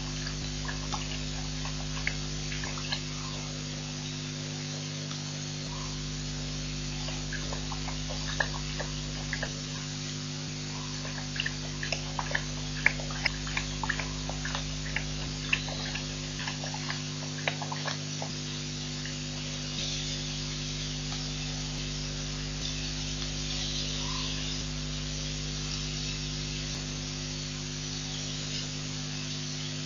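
Steady electrical hum, with a run of short, irregular clicks and ticks in the middle that come from an unidentified source.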